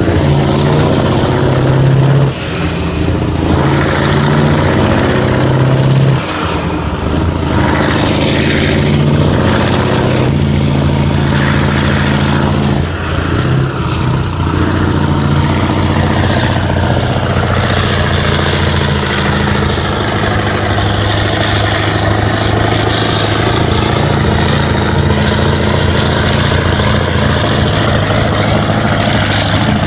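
Mack prime mover's V8 diesel engine pulling a bulldozer on a low loader, heard from close behind its twin exhaust stacks. The engine note shifts abruptly twice in the first several seconds, then runs steadily under load.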